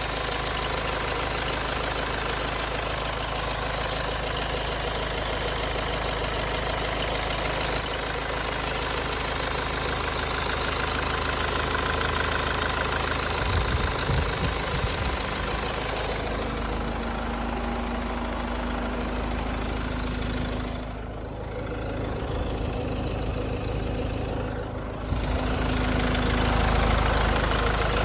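Hyundai Santa Fe engine idling steadily under the hood, with a faint steady high tone throughout. A lower hum comes in from about the middle, and the sound briefly drops twice near the end.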